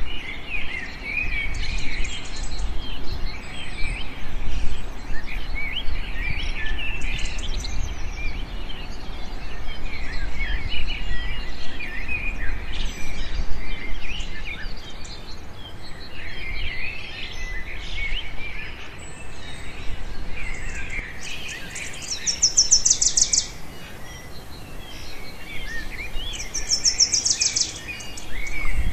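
Many small birds chirping and twittering without a break, over a low steady background rumble; a fast, high trill comes in twice in the last several seconds.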